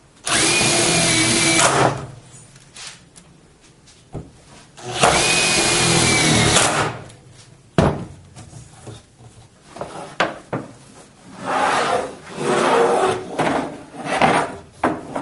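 Cordless impact driver running twice, for about a second and a half and then about two seconds, driving screws into a plastic snow-pusher bracket. A sharp knock follows, then irregular knocking and rubbing of plastic parts being handled near the end.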